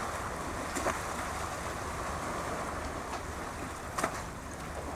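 Steady wind buffeting the microphone over the wash of small waves on the sea, with a low steady rumble beneath. Two short knocks come about a second in and about four seconds in.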